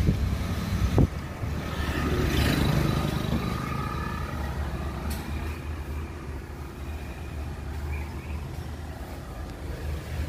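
Steady low rumble of motor-vehicle traffic, swelling around two to three seconds in before easing. A single sharp knock about a second in.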